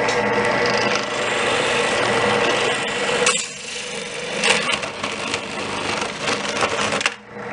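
Drill press running, its bit grinding and rasping into the plastic of an Xbox 360 controller's right thumbstick over a steady motor hum. The cutting noise breaks off briefly about three seconds in, resumes, and drops out again near the end.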